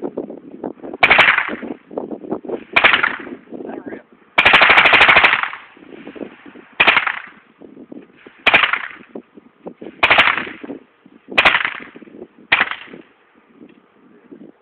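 Suppressed AK-74 rifle firing: a string of single shots and short bursts, each with a ringing echo after it. About four and a half seconds in comes one continuous full-auto burst lasting about a second.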